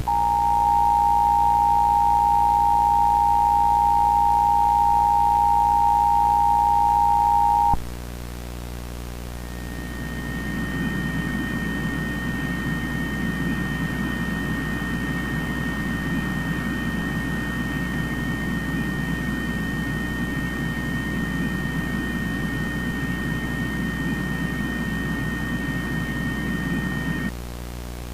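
Emergency Alert System two-tone attention signal held steady for about eight seconds over a low buzzing hum, then cut off. After a short gap a higher steady two-note tone sounds over a harsh, noisy buzz until it cuts off near the end.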